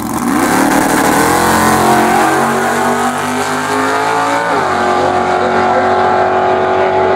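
Drag car launching at full throttle, its engine revving steeply upward in pitch for about four and a half seconds. The pitch then drops sharply and holds steadier as the car runs on down the strip.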